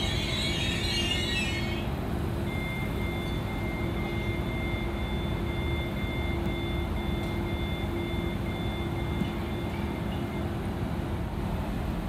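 Electric passenger train drawing slowly into the platform, with a harsh metallic screech in the first couple of seconds. After that comes a steady high-pitched squeal of two tones that stops a little before the end, over a low steady running hum.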